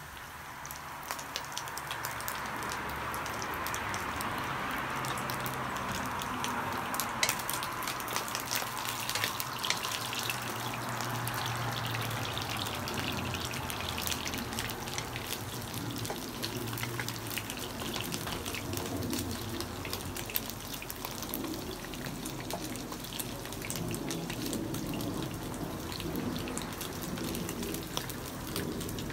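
Slices of Vietnamese pâté pan-frying in hot oil in a wok: steady sizzling dotted with crackling pops, growing louder over the first few seconds as the pieces brown.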